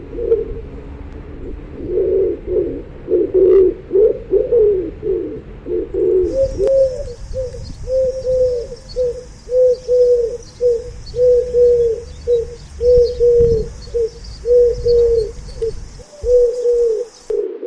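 Pigeons cooing. At first several overlapping coos run together; from about six seconds in they give way to a steady, even run of short rising-and-falling coos, roughly three every two seconds.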